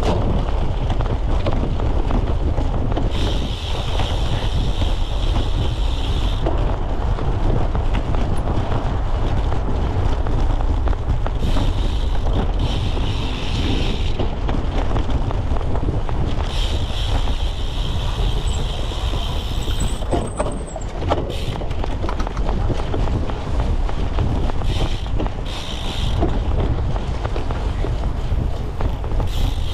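Wind buffeting a bike-mounted camera's microphone over the steady rattle of a cyclocross bike riding rough ground, with many small knocks and clicks. A higher buzzing hiss comes and goes several times.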